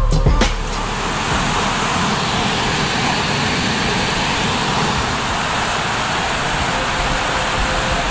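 Steady rushing of a cascading waterfall, water pouring over tiers of rock. Music cuts off about half a second in.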